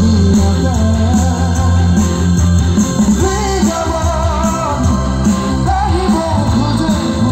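Live band music: a singer with electric guitars and drums playing a rock-style song.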